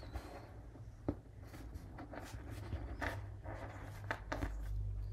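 Faint handling noises as hands tie a knot in a shock cord around a small metal swivel: soft rustling and scraping, with a sharp click about a second in and busier rustling through the middle. A low steady hum runs underneath.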